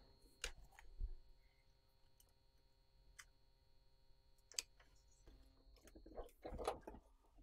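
Near silence broken by a few sparse, sharp clicks and snips from a hand tool cutting heat shrink off wiring; the sharpest comes about four and a half seconds in.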